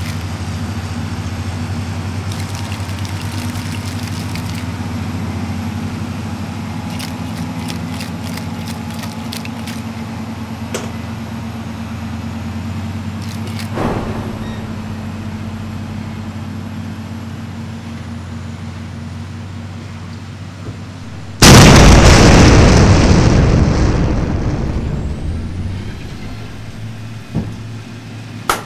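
A steady low hum with a few sharp faint clicks, then about three quarters of the way in a sudden loud boom that dies away over several seconds.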